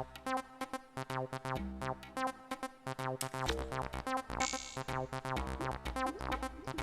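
Electronic dub music: a fast run of sharp percussive hits over synthesizer chords and a deep bass line, with a noisy rising swell about four and a half seconds in.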